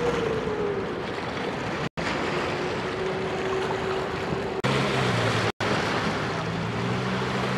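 A Waterbus fast ferry running past on the river: a steady engine whine that drops in pitch during the first second, over rushing water. After a cut, small waves wash onto rocks with a low engine drone underneath, and the sound cuts out briefly twice.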